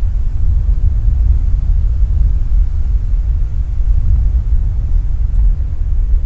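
Wind buffeting the microphone: a loud, unbroken low rumble that flutters constantly, with no distinct events.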